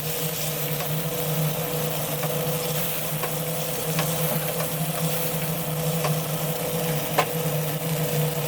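Food sizzling as it fries in a pan, with a few light clicks of stirring. A steady low hum runs underneath.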